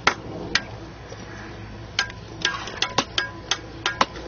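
Bricklaying taps: a mason's trowel and bricks knocking against each other as a brick lining is set in mortar. Sharp clicks, two in the first second, then about eight in quick irregular succession between two and four seconds in.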